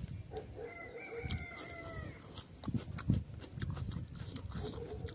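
A person chewing and smacking while eating rice and pork liver curry by hand, making scattered wet clicks. About a second in, a chicken calls once in the background for about a second.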